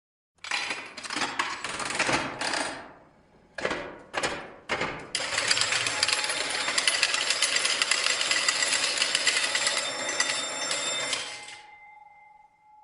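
Slot-machine jackpot sound effect: a bell ringing with a rapid metallic clatter. It comes as a run of about two seconds, three short bursts, then a long run of about six seconds that fades out, leaving a single ringing tone near the end.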